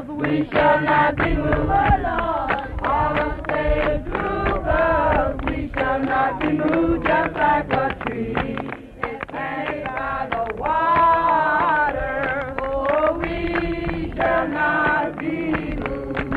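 Background music: voices singing a song, the notes bending and changing continuously.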